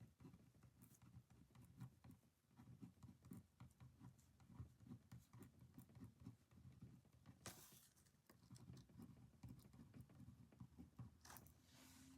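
Near silence with faint, dense light tapping and scratching from someone working at a desk, and two brief rustles, about seven and eleven seconds in.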